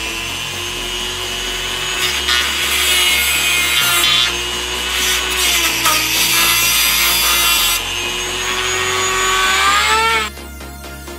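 Handheld rotary tool with a thin abrasive cut-off wheel, whining at high speed and grinding through metal with a harsh rasp, throwing sparks, from about 2 to 8 seconds in. The whine then runs on unloaded and drops sharply in pitch near the end as the tool is switched off and spins down.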